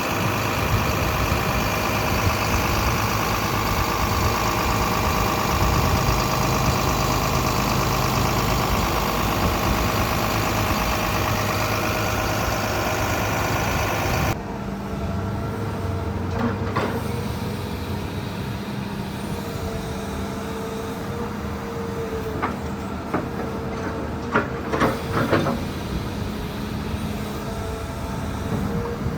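Komatsu PC200-11 hydraulic excavator running, its diesel engine at working revs with a steady whine over it; about halfway it drops abruptly to a quieter, steady idle, with a few light clicks and knocks near the end.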